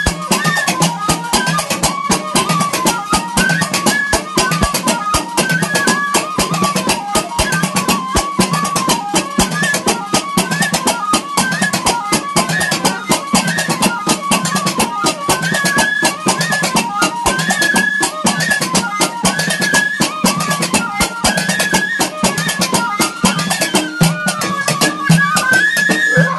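End-blown flute (gasba) playing a winding, ornamented melody over fast, steady drumming: Jilala trance music.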